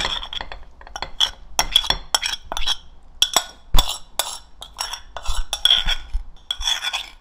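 Metal spoon clinking and scraping against ceramic bowls in a quick, irregular run of sharp strikes as thick chive-and-soy sauce is spooned out of one bowl into another.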